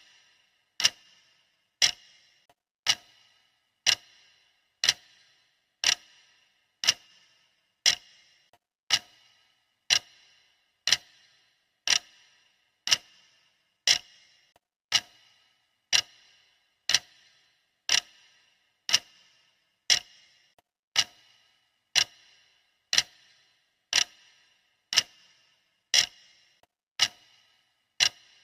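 Clock ticking steadily, one sharp tick about every second, each with a brief metallic ring after it.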